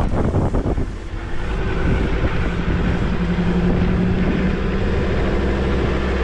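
A vehicle driving along, its engine a steady drone under a low rumble, with wind noise on the microphone.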